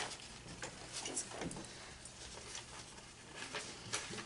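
Sheets of paper notes rustling as they are handled and shuffled at a lectern, a scatter of short, soft rustles and taps.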